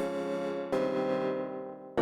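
Waldorf M synthesizer playing an electric-piano-like keyboard patch: one chord struck, then another less than a second later, each fading away slowly.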